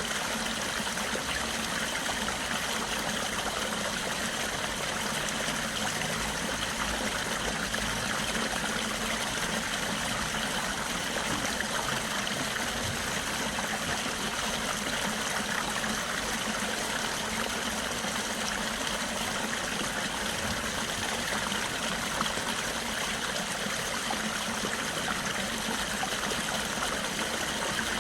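Water of a stream flowing steadily, an even, unbroken wash of sound.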